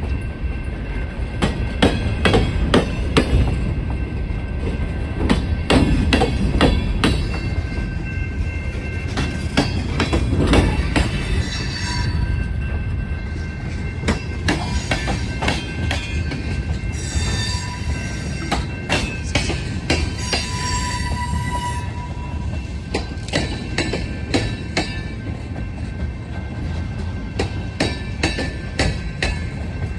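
Freight train cars rolling past close by, with a steady rumble, wheels clicking rapidly over rail joints and high-pitched wheel squeal that comes and goes.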